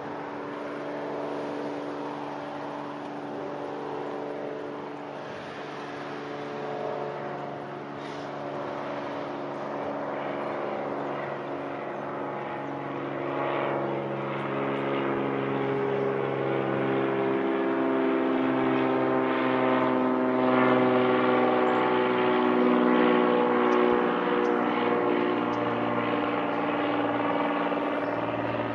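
Departing aircraft overhead: a steady engine drone with several tones that shift slightly in pitch, growing louder until about two-thirds of the way through, then staying loud.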